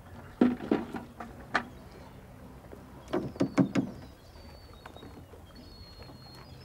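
Sharp knocks and clatters from a lobster pot being handled in a small open boat: a few in the first second and a half, then a quick cluster about three seconds in.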